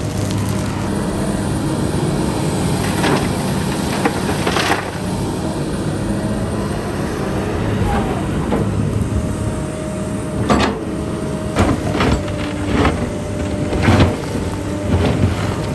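Excavator's diesel engine running steadily, with a series of sharp knocks and clanks, several close together in the second half.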